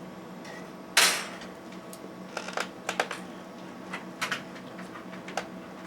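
Clicks and knocks from a Regular 8 film projector being handled: one loud knock about a second in, then a scatter of lighter clicks, over a steady low hum.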